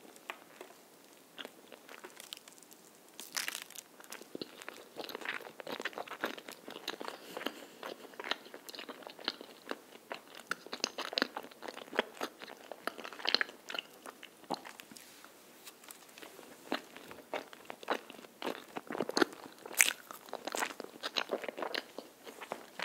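Close-miked chewing of a melon cream rice cake (soft tteok with a cream filling): a dense run of short mouth clicks and smacks as the mouthful is worked.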